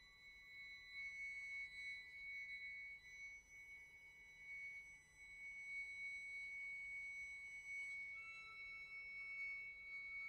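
Quiet contemporary chamber music: violin and flute hold long, high, sustained notes, with one high tone running unbroken throughout. About eight seconds in, a second, lower tone joins it.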